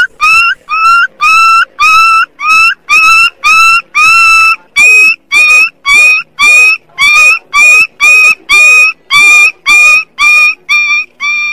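Young dog yelping over and over, high-pitched, about two cries a second: crying in distress while held down for its vaccination.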